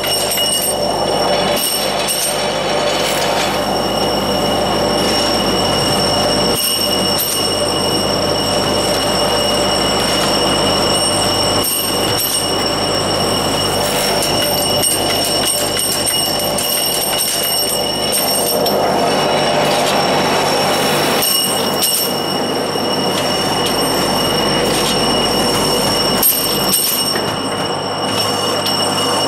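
Tube separating and feeding line running: a steady industrial machine din with several high, steady whining tones over it, and a few sharp knocks along the way.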